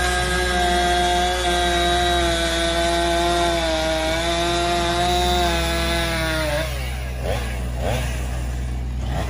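Chainsaw running at high revs, its pitch sagging slightly as it works through wood, cutting storm-felled tree debris. About two-thirds of the way in the throttle is let off and the engine note drops, then blips and wavers at lower revs.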